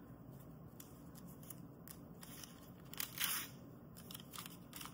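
Protective paper wrap being peeled off Apple's 35 W dual-port power adapter by hand: soft crinkling and small clicks, with one louder rustle of the paper about three seconds in.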